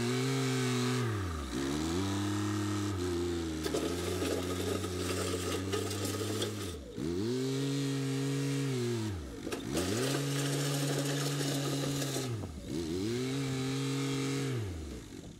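Compact front-loader tractor's engine running, its pitch dropping away sharply and climbing back about five times. The engine fades out near the end.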